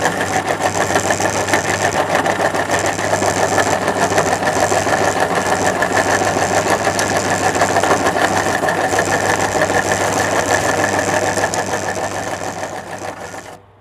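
Electric meat grinder running steadily with a constant motor hum, fading out near the end.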